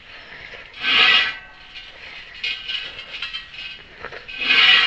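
An acetone-soaked rag rubbed hard over a sanded metal wheel rim. There are two loud squeaking wipe strokes, one about a second in and one near the end, with fainter scrubbing between them.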